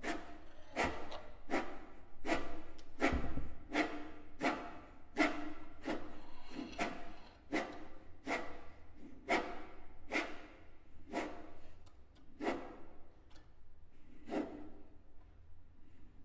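Violin strings rubbed in short, separate strokes, as an extended playing technique: each a brief pitched scrape that fades away, about one and a half a second, spacing out toward the end.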